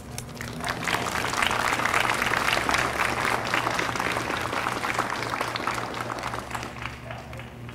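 Audience applauding. The clapping builds up about half a second in and fades out near the end.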